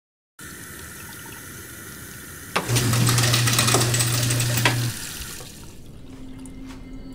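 Kitchen tap water running into a sink after a moment of silence, getting louder for about two seconds in the middle, with a steady low hum that starts and stops abruptly during that louder stretch.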